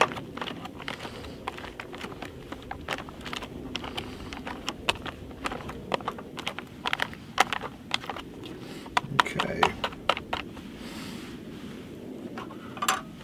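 Spoon stirring a freeze-dried meal as it rehydrates in its plastic pouch: irregular crinkling of the pouch and quick scraping clicks all the way through.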